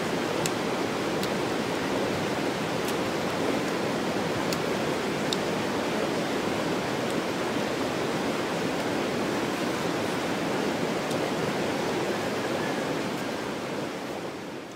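Steady rushing of flowing water, with a few faint clicks, fading out near the end.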